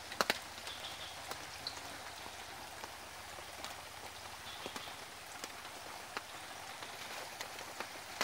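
Light rain falling steadily, with a few faint sharp clicks, two close together at the start.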